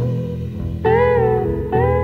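Background music: a slow melody of long held notes with a slight waver over a steady low accompaniment, a new note starting just under a second in.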